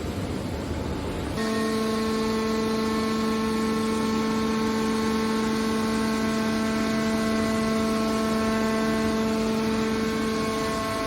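Hydraulic scrap metal baler's pump unit running with a steady hum, which comes in about a second and a half in over a wash of machine noise.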